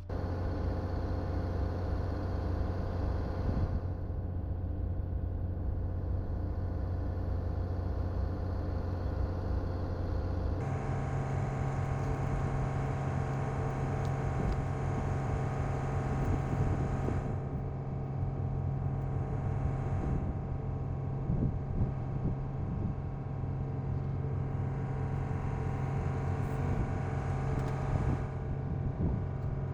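Truck engine running steadily; about ten seconds in the hum jumps abruptly to a higher, steady pitch and holds there.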